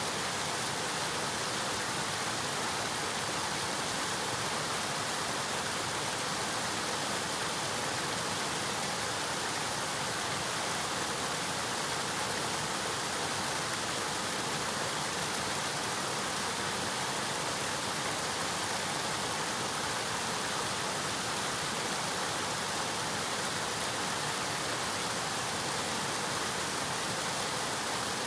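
River water flowing and rushing steadily, an even hiss with no breaks or changes.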